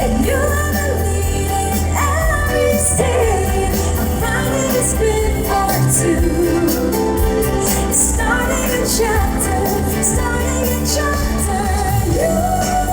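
A female pop singer sings a slow ballad live over full backing music with a steady bass, amplified through a concert sound system.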